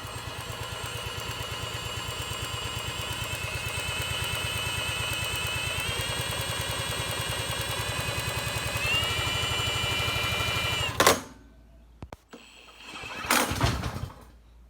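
Pressure washer's small gasoline engine running with an even firing pulse, its pitch stepping up twice. It stops abruptly about eleven seconds in, and a short loud noise follows a couple of seconds later.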